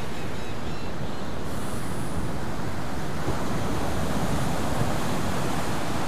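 Gulf surf breaking on a sandy beach: a steady wash of waves.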